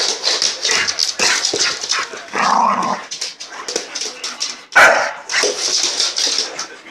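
Young Staffordshire Bull Terrier barking and yipping in excited play right at the microphone, amid rapid irregular scuffling and clicks. The loudest burst comes a little under five seconds in.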